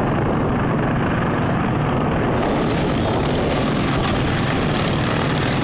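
Several racing lawn mowers' small engines running at once as the pack laps the track, a steady, even engine noise.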